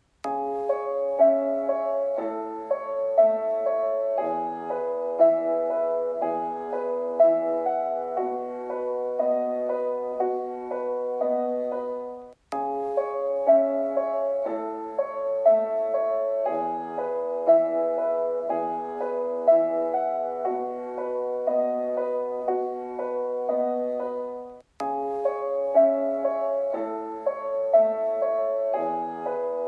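Piano music in a steady rhythm: the same phrase of about twelve seconds plays over and over, cutting off abruptly and starting again twice.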